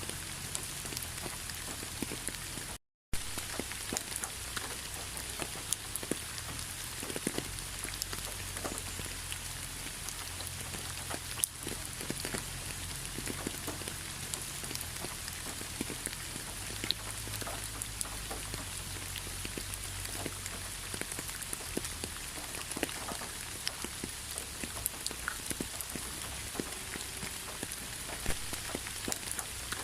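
Steady rain falling, a constant hiss dotted with many separate drop ticks. The sound cuts out for a fraction of a second about three seconds in.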